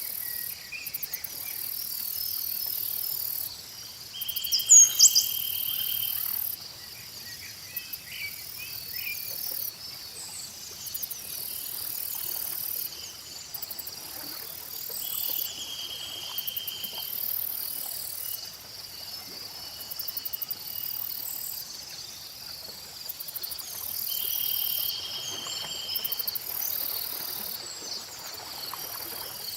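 Chorus of crickets and other insects chirping steadily, with pulsing high trills and a few held buzzing trills, while birds chirp now and then, loudest about five seconds in.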